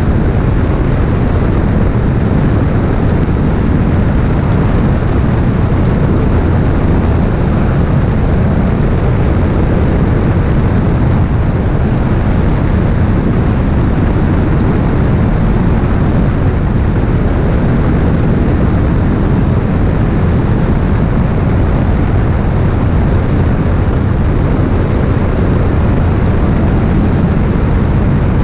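Beechcraft Bonanza S35 in a climb, its six-cylinder engine and propeller giving a steady drone, heard from under the wing mixed with loud rushing airflow over the microphone.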